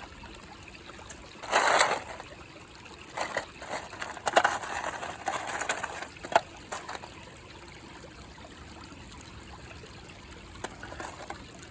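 Shallow creek water trickling steadily, broken by several short bursts of noise and one sharp click a little past the middle as a pan is scooped through the streambed to gather a load of rocks.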